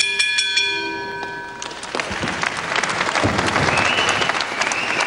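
Ring bell struck once, ringing out for about a second and a half to mark the end of the round, then the crowd applauding, growing louder.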